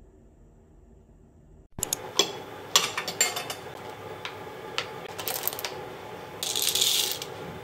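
Small clicks and taps of makeup cases and caps being handled, then a short hiss near the end as an m.m.m Make Fixer setting-mist bottle is sprayed.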